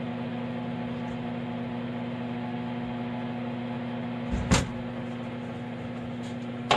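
Steady electric machine hum, one strong tone with many overtones, with a sharp click about four and a half seconds in and another near the end.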